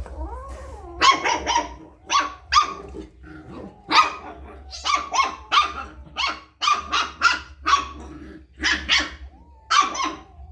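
A dog barking repeatedly, short barks coming irregularly and often two or three in quick succession.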